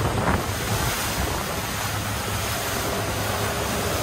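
Wind buffeting the microphone over the rush of choppy water along a moving small boat, a steady noise with no clear engine tone.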